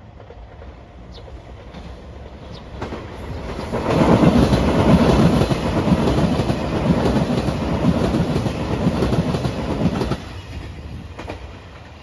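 JR Shikoku 2700 series diesel express train passing close by: the noise of its cars builds up, runs loud for about six seconds, then drops off sharply near the ten-second mark.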